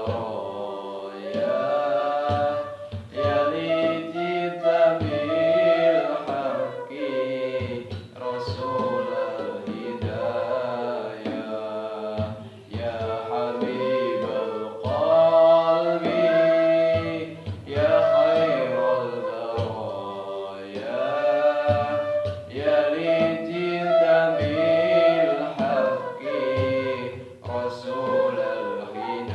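Sholawat, an Islamic devotional song, sung by voices in long melodic phrases.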